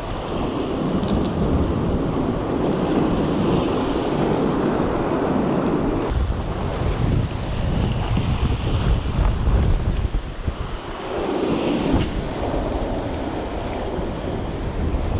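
Atlantic surf surging and breaking over shoreline rocks, with wind buffeting the microphone; the wash swells and eases in waves.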